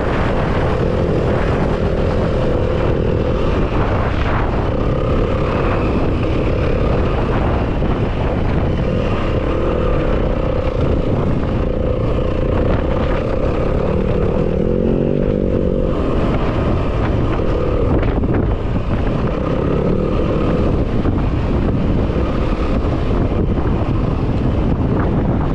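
Yamaha WR250F four-stroke single-cylinder dirt bike engine running while under way, its note changing with the throttle.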